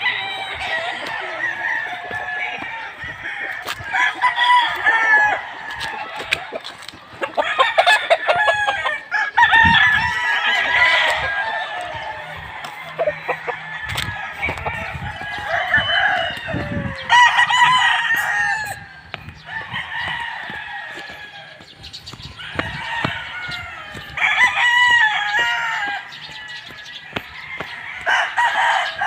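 Many gamecocks (fighting roosters) crowing over and over, their calls overlapping, with some clucking.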